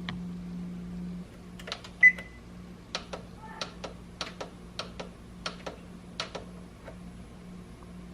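A single short electronic beep, followed by a run of about a dozen light, sharp clicks spread over a few seconds, over a steady low hum.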